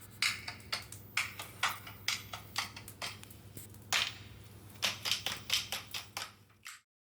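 A quick, uneven series of sharp taps, about two or three a second, over a low steady hum.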